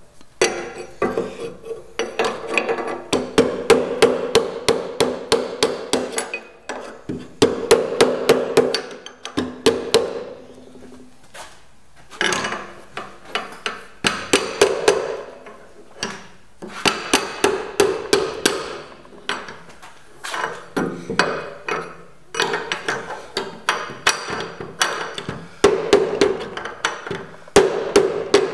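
Hand hammering on a sheet-steel repair panel clamped over a wooden form, working the edge over the form. The blows come in quick runs of about four or five a second with short pauses, and the steel rings with each blow.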